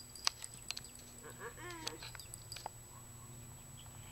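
Dog giving a brief faint whine about a second and a half in, with a few scattered faint clicks.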